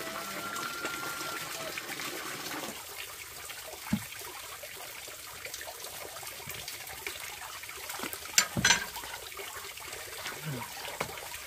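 Water running and trickling steadily, with a sharp knock about four seconds in and two louder knocks just past eight seconds.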